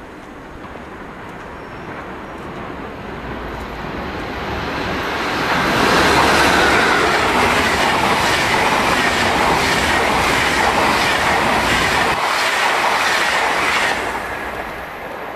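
An SBB train passing through the station without stopping. The rush builds as it approaches, then comes loud with a clatter of wheels over the rail joints for about eight seconds, and drops off sharply near the end as the train clears.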